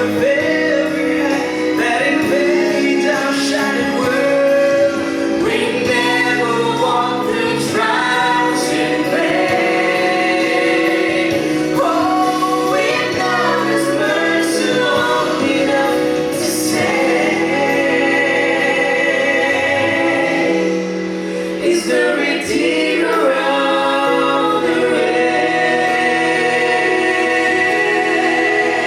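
Gospel vocal group singing a slow song in harmony, several voices holding sustained chords together.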